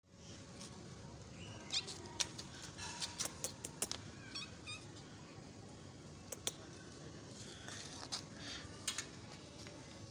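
Faint footsteps of sandals on a tiled floor: scattered light clicks and taps over a low steady hum.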